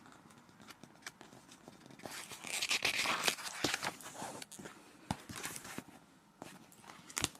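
Book pages rustling as they are handled and turned, loudest about two to three seconds in, with scattered light clicks and one sharper tap near the end.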